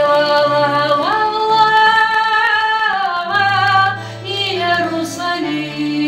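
A woman singing a melody with long held notes while accompanying herself on an acoustic guitar.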